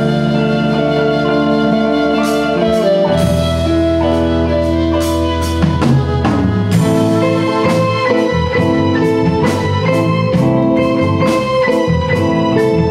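Band playing an instrumental interlude of a slow ballad: electronic keyboards sustaining organ-like chords over a drum kit, with the drum strokes coming in after a couple of seconds and settling into a steady beat about halfway through.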